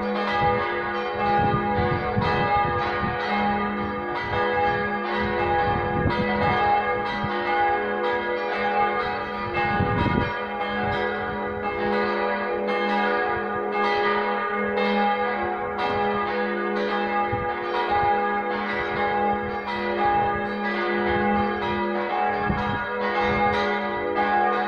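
Four church bells ringing together as a partial peal, their strokes overlapping in continuous, steady ringing over a sustained low hum.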